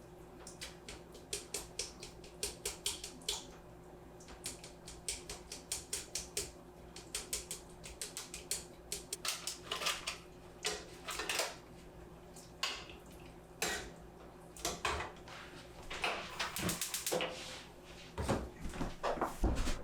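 Kitchen utensils clicking and tapping against a bowl or board in quick runs of several strokes a second, with a few heavier knocks near the end.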